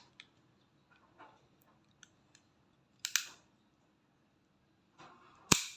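Metal clicks and snaps from a WE 1911 MEU gas blowback airsoft pistol's mechanism being worked by hand: a few light ticks, a sharp double click about three seconds in, and a louder single sharp snap near the end.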